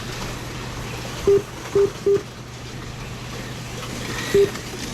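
Four short electronic beeps from the race-timing system, three in quick succession about a second in and one near the end, over a steady drone of dubbed-in Legends race car engine sound.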